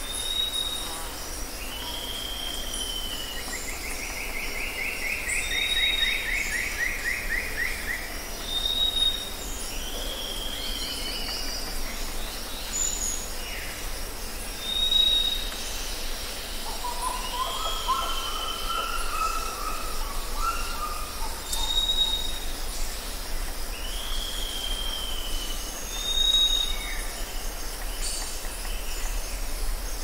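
Bird calls: short high whistled notes, each followed by a downward-curving call, repeating every few seconds. A long, fast trill falls in pitch a few seconds in, and a lower, wavering call comes past the middle, over a steady hiss.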